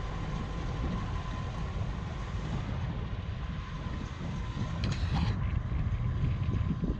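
NR class diesel-electric freight locomotives rumbling low and steady as a freight train approaches, with a faint steady whine above the rumble. A few sharp clicks come about five seconds in.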